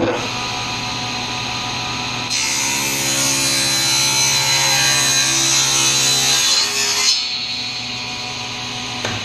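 SawStop table saw starting up and running with a steady hum. From about two seconds in, the blade rips a board lengthwise for about five seconds, which makes the sound louder and brighter. After that the saw runs free again.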